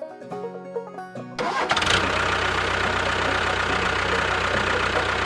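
Background music, then about a second and a half in an engine starts up suddenly and runs on steadily with a low, even pulse.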